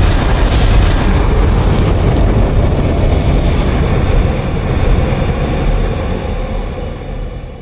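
Cinematic logo-intro sound effect: a loud, deep, explosion-like rumble with hiss over it, fading slowly through the second half.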